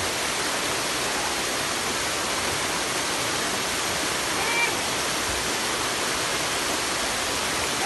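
Waterfall: water pouring down over rocks close by, a steady, even rush.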